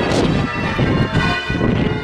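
Church bells being rung in changes: overlapping bell strokes with their tones ringing on, and heavy low thuds among them.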